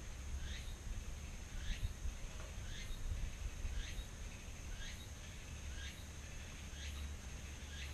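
A bird calling over and over, short falling chirps about once a second, over a faint steady high-pitched whine and a low rumble.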